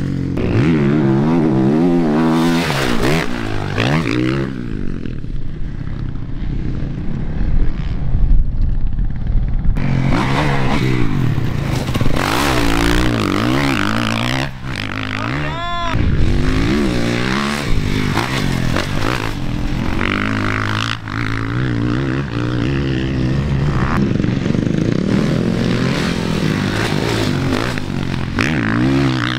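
Motocross dirt bikes on a track, their engines revving hard and backing off, with the pitch rising and falling through throttle and gear changes.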